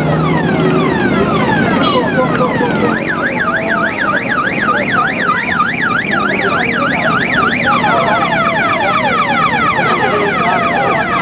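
Electronic multi-tone siren cycling through its patterns: a run of quick falling whoops, then a fast up-and-down warble of about three cycles a second from about three seconds in, switching back to falling whoops near eight seconds.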